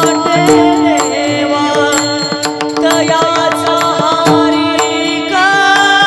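Marathi devotional abhang music: rapid mridang drum strokes over a steady held drone, with a melody line wavering above.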